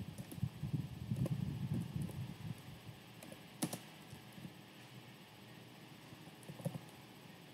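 Quiet typing on a computer keyboard: a quick run of keystrokes, then a few single key presses with pauses between.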